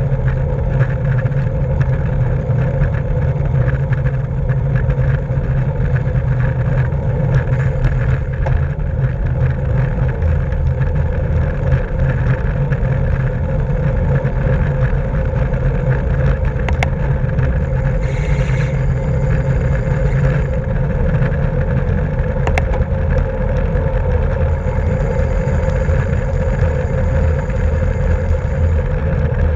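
Steady wind rumble buffeting a bike-mounted camera's microphone while riding at race speed, mixed with road and tyre noise, with a couple of sharp clicks in the second half.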